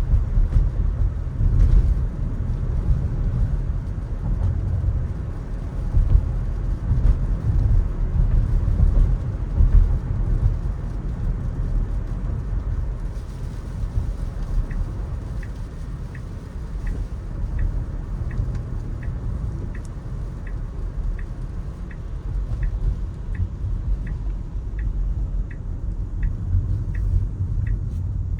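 Low, steady road and tyre rumble of a Tesla electric car driving, heard from inside the cabin. From about halfway through, the turn-signal indicator ticks evenly, about one and a half times a second.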